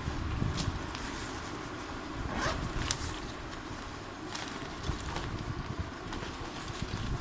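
A backpack being handled: fabric rustling and scraping, with scattered short clicks.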